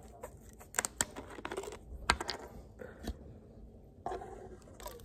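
Screw cap of a plastic soda bottle being twisted open, a series of sharp clicks and snaps, followed by a short soft splash of soda poured into a plastic cup just after four seconds in.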